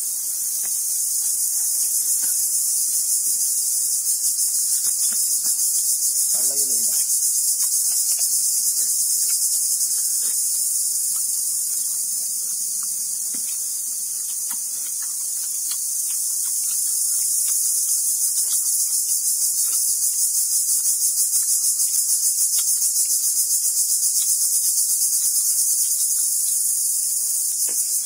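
Loud, steady, high-pitched insect chorus with a fine rapid pulsing, beneath it faint scraping ticks of a blade peeling green papaya. A short wavering call sounds about six seconds in.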